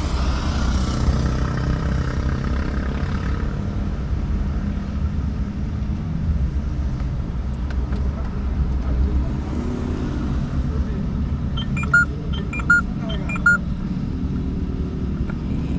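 Steady low vehicle rumble, with a quick run of about five short electronic beeps around twelve seconds in.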